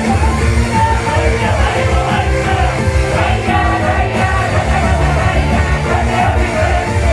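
A live idol-pop song with a rock band backing and a female voice singing, played loud with a steady beat.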